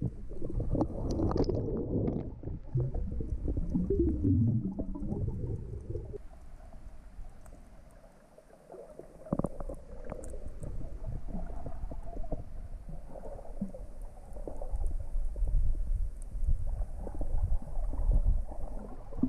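Muffled rumbling and gurgling of water against a camera held underwater and moving through the water. It goes quieter for a moment about eight seconds in, then picks up again.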